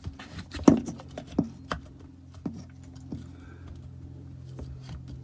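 Hard plastic clicks and knocks as a new strainer is pushed and threaded by hand onto the inlet of a Shurflo 12-volt RV water pump. The loudest knock comes within the first second, then a few scattered clicks follow, over a steady low hum.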